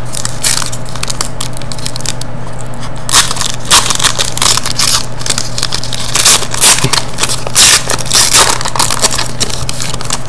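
Foil trading card pack wrapper being torn open and crinkled by hand: irregular crackling rustles, coming in louder clusters from about three seconds in, over a steady low hum.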